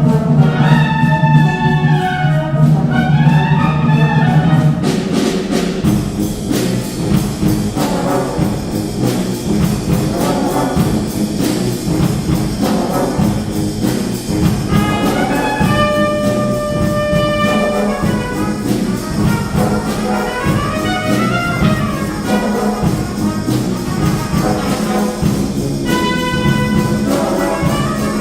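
Wind band playing, with trumpets and trombones carrying the melody over a sustained low accompaniment; a few seconds in the texture becomes fuller and more rhythmic, and a single note is held for about two seconds in the middle.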